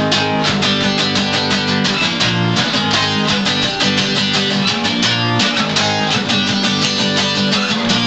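A band playing an upbeat song, led by strummed guitar over a bass line with a steady quick rhythm.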